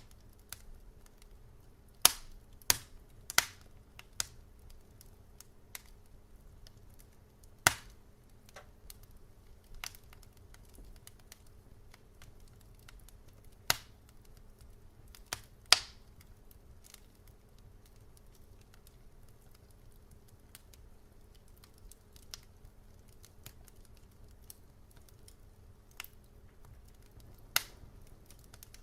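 Wood fire crackling: scattered sharp pops at irregular intervals, a cluster of loud ones about two to four seconds in and more around eight, fourteen to sixteen and twenty-seven seconds, over a faint low steady hum.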